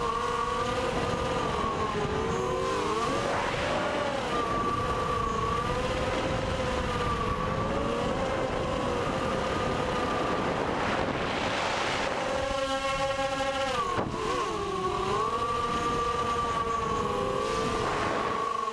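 Mini racing quadcopter's 1806 brushless motors and carbon propellers whining in flight, the pitch wavering up and down as the throttle changes, over wind noise.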